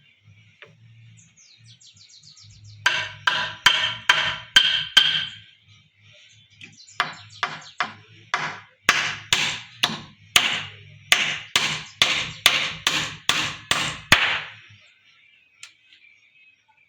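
Hammer driving nails into a wooden framework. A quick run of ringing strikes is followed by a short pause, then a longer, steady run of about two blows a second that stops a couple of seconds before the end.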